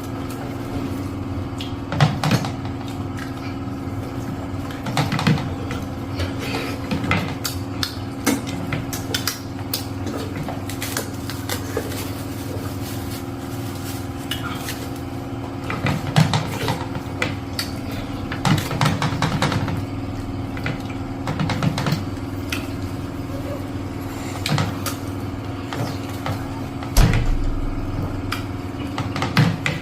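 Plates and bowls clinking and knocking now and then over a steady low hum, with a louder thump near the end.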